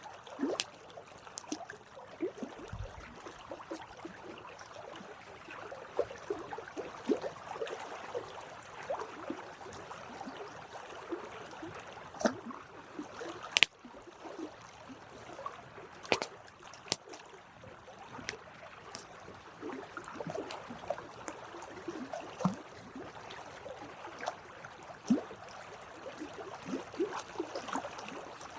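Wood campfire burning, with a steady dense crackle and sharp pops every few seconds.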